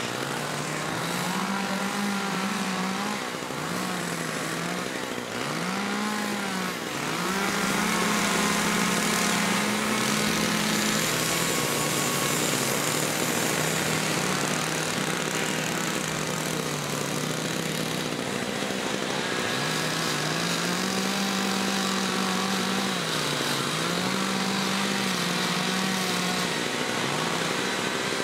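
Several carving chainsaws running at once, their engines revving up and dropping back again and again as they cut into wood.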